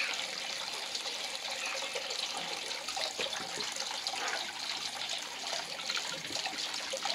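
Water trickling steadily in a small model reservoir, with a few faint sloshes as objects are set into the water.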